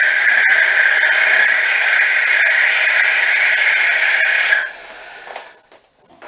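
Boring head on a mini mill cutting the bore of a V-belt pulley: a loud, steady, high-pitched screech from the cut that stops about four and a half seconds in, followed by a few light clicks.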